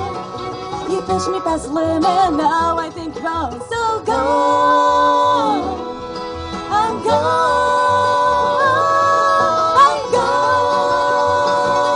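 Acoustic bluegrass band of fiddle, mandolin, acoustic guitar and banjo playing live, with long held melody notes over a steady rhythmic backing.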